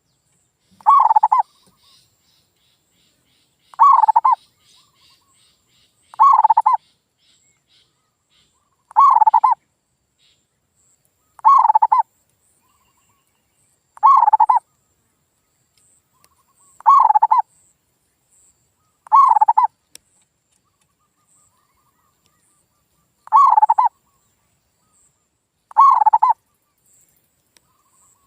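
Male zebra dove (perkutut) singing its cooing song: a short call of a few quick notes, repeated ten times about every two and a half seconds with silence between.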